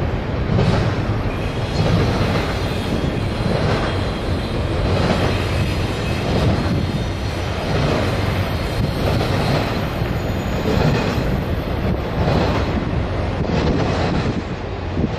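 Freight train cars rolling past on a bridge. There is a steady low rumble of steel wheels on rail, with a clack every second or so as the wheel sets cross rail joints.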